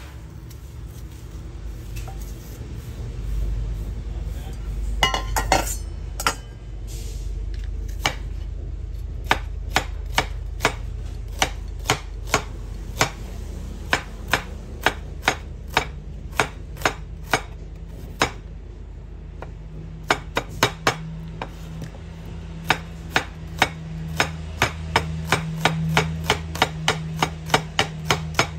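Chef's knife slicing a red onion on a wooden cutting board, the blade knocking the board about two times a second with a short pause near the middle. A low steady hum runs underneath.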